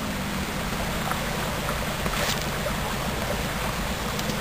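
Steady outdoor rushing noise, with a few faint scrapes and ticks as soil is scooped by hand from the mouth of a tarantula burrow.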